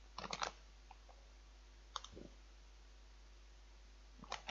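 Plastic food packet crackling in a few short bursts as it is handled, with quiet between.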